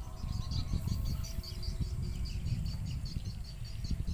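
Outdoor pond-bank ambience: a quick run of short, high chirps, several a second, over a low rumble of wind on the microphone.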